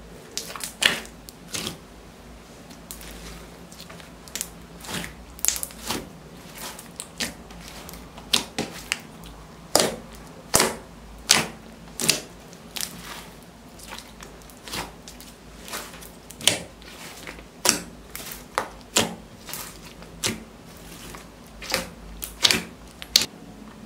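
Fingers poking and pressing into a large clear slime thick with glitter, giving irregular sharp clicking pops, about one or two a second.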